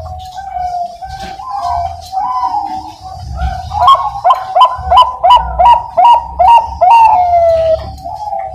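Bangkok-type zebra dove (perkutut) singing its cooing song: soft coos, then a quick run of about eight sharp repeated notes from about four seconds in, ending in a long falling coo.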